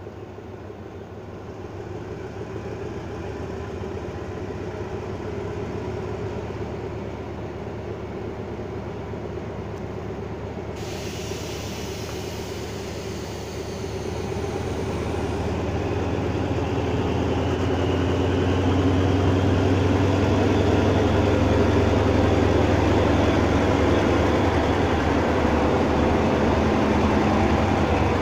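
Diesel locomotive running as it pulls a passenger train along the platform, its engine drone growing steadily louder as it approaches and is loudest as it passes close by.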